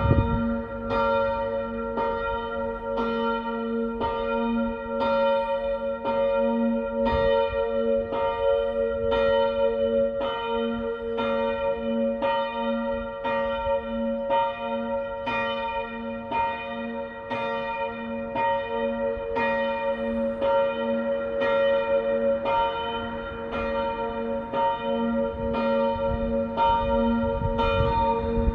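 Church bells ringing for the six o'clock evening peal, struck about once a second, their tones hanging on between strokes. A low rumble comes in near the end.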